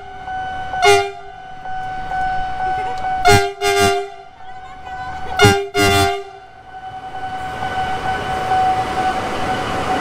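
Diesel locomotive sounding its horn in short toots, some in quick pairs, over a steady tone. In the last few seconds the rumble of the locomotive and train passing close swells up.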